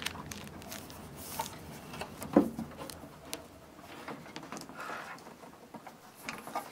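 Handling noise of a Technics SL-1900 turntable being turned back over: scattered knocks, taps and rubs of its plastic base and clear dust cover, with the loudest knock about two and a half seconds in.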